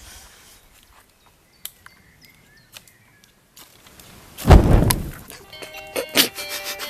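A few faint scrapes, then a sudden loud whoosh about four and a half seconds in as a campfire flares up, lit with a ferrocerium fire-starter rod. Music comes in near the end.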